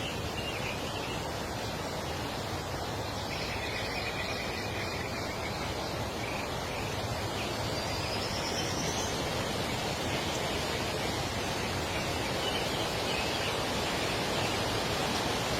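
Steady outdoor rushing noise, with a few faint bird calls a few seconds in and again in the middle.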